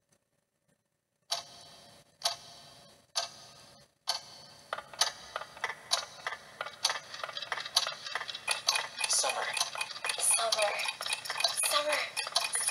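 Movie trailer soundtrack heard through a portable DVD player's small speaker: after a moment of silence, three sharp hits about a second apart, each fading out, then fast ticking and clicking that grows denser, with voices coming in near the end.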